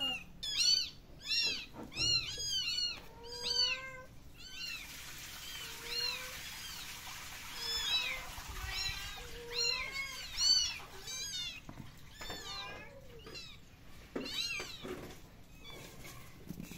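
Kittens mewing over and over in short, high cries that rise and fall in pitch, about one or two a second.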